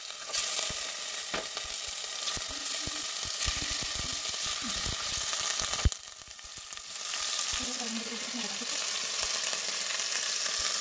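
Diced chicken breast sizzling in hot oil as the pieces are dropped one by one into a stainless steel pot, with many small knocks among the sizzle. There is one sharp knock about six seconds in, then the sizzle drops briefly and picks up again.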